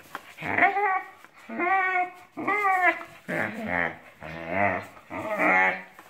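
Male Magyar Vizsla giving a string of about six drawn-out whining, howl-like calls with a chew toy in his mouth, each call bending up and then down in pitch. This is excited, happy 'singing', not distressed whining.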